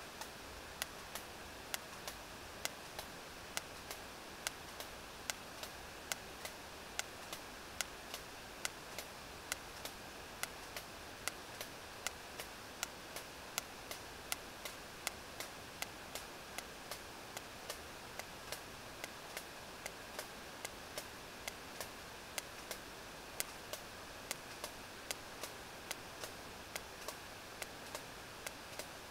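Sperm whale echolocation clicks picked up by a deep-sea hydrophone: sharp, evenly spaced clicks a little under two a second, over a steady underwater hiss.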